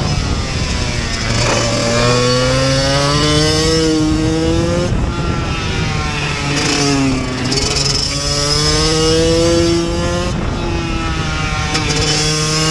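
Kawasaki KX85's two-stroke single-cylinder engine heard from on board, revving as the bike is ridden round the circuit. Its pitch climbs under acceleration and drops back sharply about five and ten seconds in.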